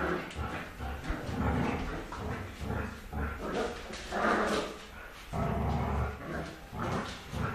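A Labrador and a West Highland white terrier puppy play-fighting, with dog barks coming in irregular bursts, the loudest about four seconds in.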